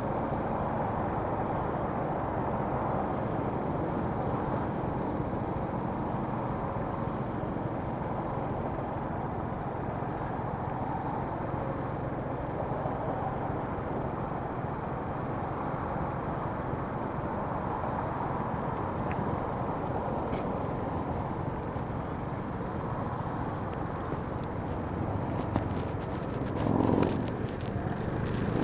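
Motor scooter's small engine idling steadily while stopped at a red light, with a brief louder swell near the end.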